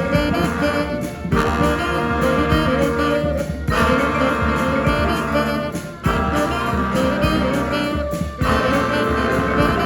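Brass band playing live: horns over a low bass line, the phrases breaking off briefly about every two and a half seconds.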